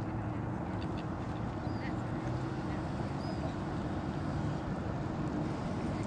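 A steady low background rumble, with a few faint, short bird calls scattered over it from the waterbirds feeding on the river.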